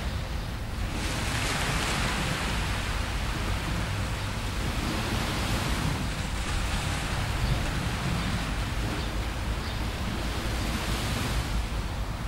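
Small waves washing onto the beach, their hiss swelling three times, over a steady low rumble of wind on the microphone.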